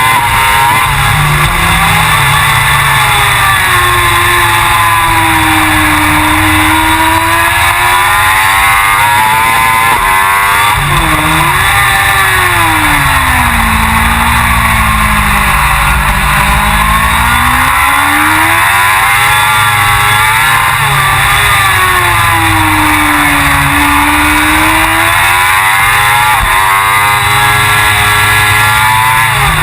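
Suzuki GSX-R1000 superbike's inline-four engine at racing speed, its pitch sweeping down and back up in several long arcs as the revs fall and climb, lowest about halfway through.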